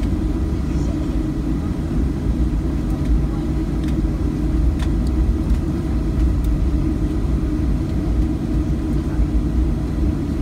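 Cabin noise of a Boeing 737 taxiing after landing: a steady low rumble from the engines at idle and the aircraft rolling, with a few faint clicks.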